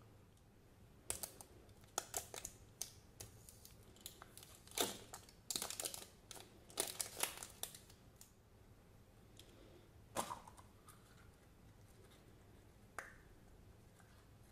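A printed wrapper being torn and peeled off a plastic surprise egg, a run of irregular crinkles and tears. After that the plastic egg's two halves are prised open, with a couple of sharp clicks near the end.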